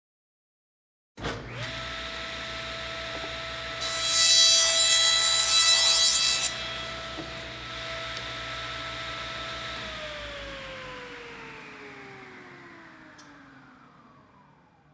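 Electric saw switched on, its motor running at a steady pitch, then cutting through material for about two and a half seconds with a loud rasping noise. It runs free again, then is switched off and its pitch falls as the blade spins down and fades away.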